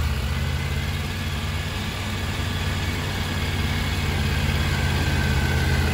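Triumph Tiger 900 Rally Pro's three-cylinder engine catching right at the start and idling steadily.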